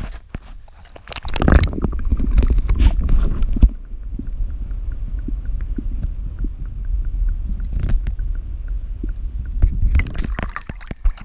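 Action camera plunging into lake water: a burst of splashing, then the muffled, low rumbling and sloshing of water heard with the camera submerged, with a faint regular ticking in the middle. Near the end there is more splashing as the camera comes back up through the surface.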